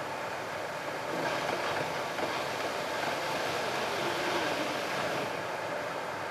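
Steady tyre and road noise of a car at expressway speed, heard from inside the cabin. It grows louder about a second in as the car enters a short tunnel and eases off again as it comes out near the end.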